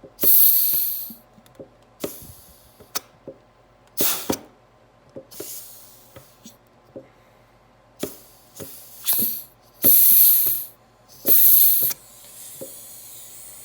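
Compressed air hissing from an air-gun nozzle in about seven short blasts into the feed holes of a 4L60E forward input drum to air-check its clutch pistons, with light clicks between blasts. Near the end a quieter steady hiss runs on, air leaking past the nozzle tip and the finger sealing a hole.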